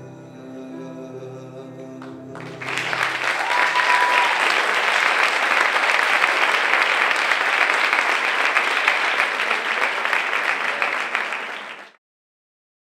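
Music with held notes ends about two and a half seconds in as an audience breaks into loud applause, with a brief whistled note soon after it starts. The applause runs about nine seconds and cuts off abruptly near the end.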